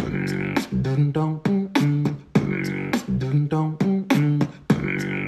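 Background music: a rhythmic beatbox-style vocal track of short pitched notes, each starting with a sharp click, about three a second.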